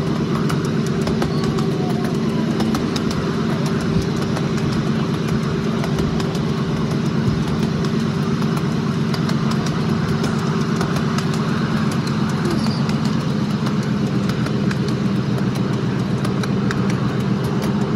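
Ride-on miniature railway train running along its track: the locomotive's small engine drones steadily, with frequent light clicks from the wheels on the rails.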